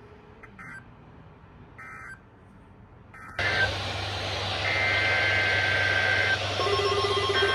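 Three short, faint bursts of SAME digital data, the end-of-message code that closes a NOAA Weather Radio alert test, about a second apart. Then a louder, hissy recording cuts in with a steady high two-note tone and, near the end, a fast pulsing low tone.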